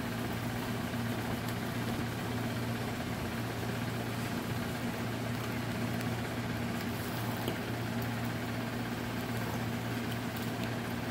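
A steady low mechanical hum that holds even and unchanging throughout.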